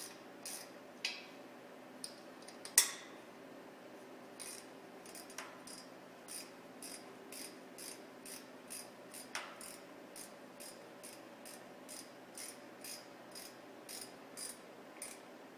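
Ratchet wrench running clamp nuts down onto a chainsaw bar, clicking about twice a second, with one louder metal knock about three seconds in.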